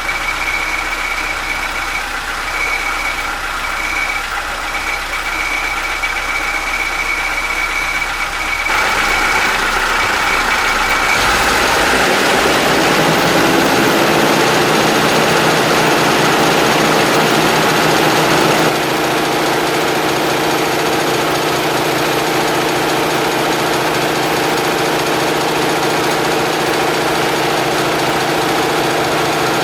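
Homemade air compressor starting up about eleven seconds in and then running steadily, with a loud, even machine drone that eases slightly about seven seconds later. Before it starts, a high steady whine breaks off briefly now and then over a low hum.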